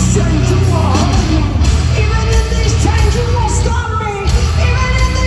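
Live heavy metal band playing loud, with a woman singing over it, heard in an arena.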